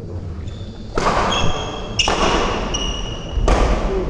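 Badminton rally: rackets striking the shuttlecock three times, about a second or so apart. Each stroke is followed by high squeaks of players' shoes on the court floor, with the echo of a large sports hall.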